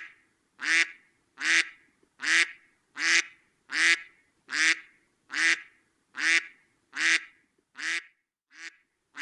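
Duck quacking in a steady series of about a dozen short quacks, roughly one every 0.8 seconds. The last two quacks are fainter.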